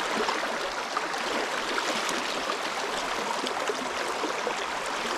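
Steady rush of a shallow, fast-flowing river running over stones.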